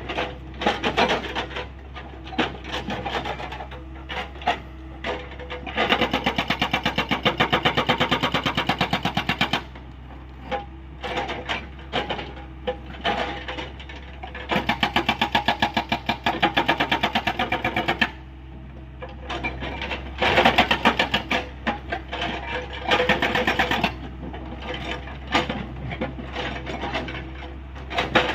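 Hyundai 85A excavator's hydraulic breaker hammering rock: two long runs of rapid, evenly spaced blows, about six seconds in and again about fourteen seconds in, with scattered single knocks between them over the excavator's steady engine hum.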